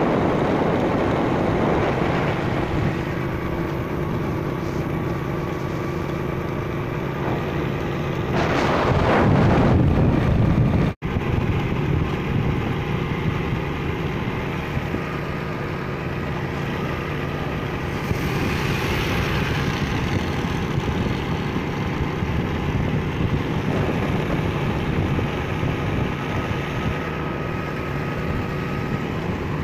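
Motorcycle engine running steadily under way, with wind and road noise on the microphone. A louder rushing noise swells for about two seconds near the middle, and the sound drops out for an instant just after it.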